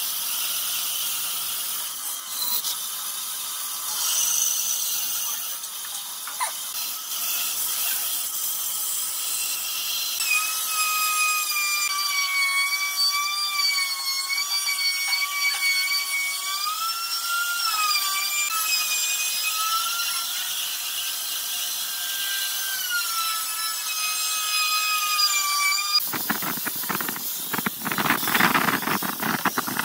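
Band saw cutting through a thick wooden board, a steady hiss of the blade with a wavering high squeal that comes in about a third of the way through and bends up and down in pitch. Near the end it cuts to a louder, harsher sound of an angle grinder with a sanding disc sanding the curved wooden piece.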